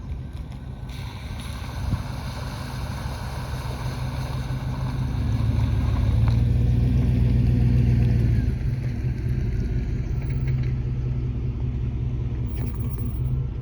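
An engine running, growing louder to its loudest about six to eight seconds in, then easing off.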